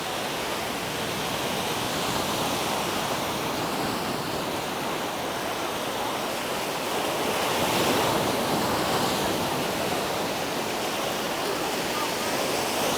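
Surf washing onto a sandy beach: a steady wash of small waves that swells about eight seconds in.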